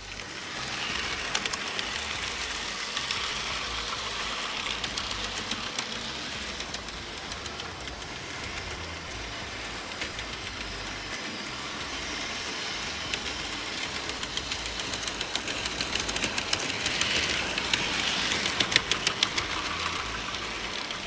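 Small motorized model train running on its track: a steady motor whir with wheels clicking over the track, the clicks coming thicker near the end.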